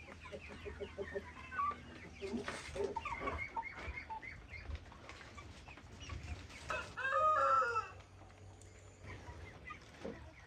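Chickens clucking and chirping, with a rooster crowing loudly once about seven seconds in.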